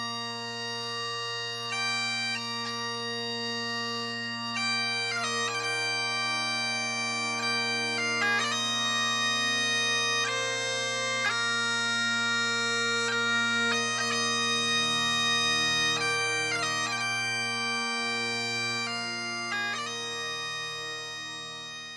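Bagpipes playing a slow tune: a steady drone sounds under the chanter's melody, which moves from note to note. The music begins to fade near the end.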